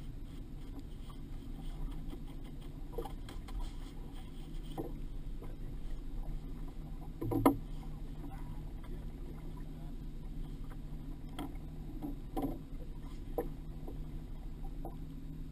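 Steady low hum of a fishing boat on the water, with scattered knocks and clunks on the deck, the loudest about seven and a half seconds in.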